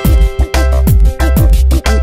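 Background music with a steady, quick drum beat, about four strikes a second, over deep bass.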